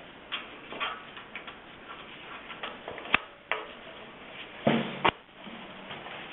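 Small metallic clicks and taps of safety pins being fitted into the hinge bar of a kiln's spring hinge. There is a sharper click about three seconds in and a louder clatter of metal knocks near five seconds.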